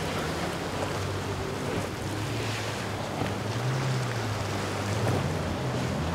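Yamaha outboard motor on a bowrider, a steady low drone as the boat runs through choppy waves, over the hiss of breaking water and wind on the microphone.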